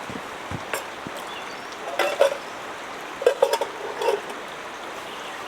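Scattered clinks and knocks of hard items, some briefly ringing like metal or a dish, as gear is handled. They come in small clusters, over a steady background hiss of rain or running water.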